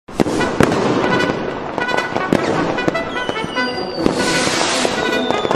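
Music with many sharp bangs and crackles, starting suddenly. There is a hiss about four seconds in and a long falling whistle near the end.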